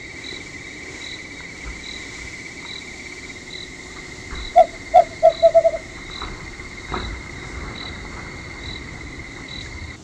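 Night insects: a cricket trilling steadily on one high pitch, with a second insect chirping about once every two-thirds of a second. A little before halfway, a quick run of five loud, short animal calls, each note closer to the last; a single faint knock about seven seconds in.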